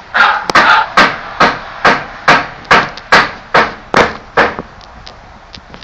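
Hammer blows, about eleven sharp strikes coming evenly at roughly two a second, then stopping about four and a half seconds in.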